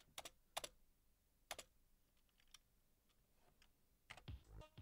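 Computer keyboard keystrokes: a few sharp, separate key clicks in the first two seconds, then a quicker run of clicks near the end.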